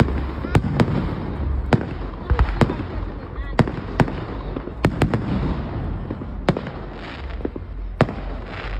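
Aerial fireworks exploding: about a dozen sharp bangs at irregular intervals, some in quick pairs, over a steady low rumble.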